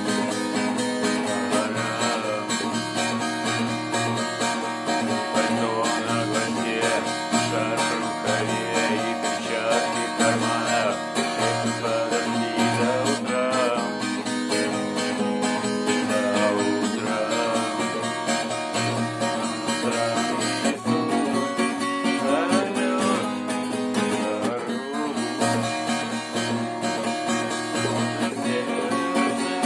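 Music led by strummed and plucked guitar, playing steadily.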